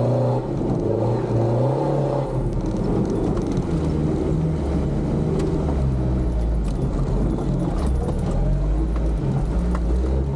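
Off-road Toyota's engine heard from inside the cabin, pulling over rough ground on a trial stage. A higher engine note drops away about two seconds in. After that, low revs rise and fall in short throttle pulses, with scattered knocks and rattles from the vehicle.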